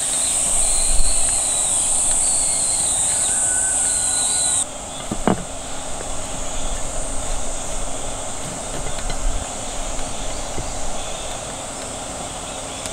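Outdoor summer ambience dominated by a steady, high-pitched insect drone, with a few brief high chirps. The drone drops off suddenly about five seconds in and carries on more faintly after that.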